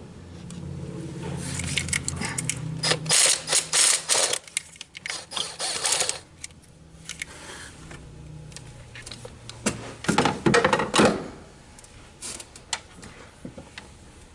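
Hand ratchet wrench clicking in quick runs, turning a bolt. There are two main bursts of work, one from about a second and a half in to six seconds, and another shorter one around ten seconds.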